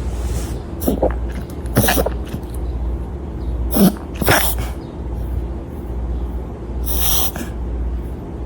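Small dog having a fit of wet-sounding sneeze-like bursts, about five short, sharp ones spread over several seconds. The owner takes it for reverse sneezing, though wetter than usual, since the dog breathed wildfire smoke.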